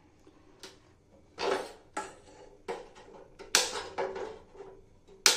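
A wooden spatula and a nonstick frying pan knocking and clattering on a gas stove: about eight sharp, irregular knocks, a couple of them longer and ringing out.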